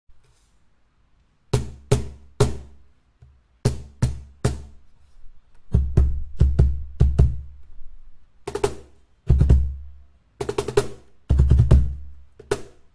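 MBG Super Bass cajon played by hand, starting about a second and a half in: sharp slap strokes and deep bass strokes in a rhythmic groove, with quick flurries of strokes near the end.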